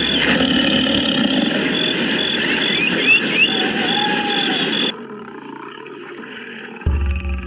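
Dense forest-style background with a steady rapid insect-like chirping and a few short rising bird chirps, cutting off abruptly about five seconds in. Near the end a tiger roar begins, deep and pitched.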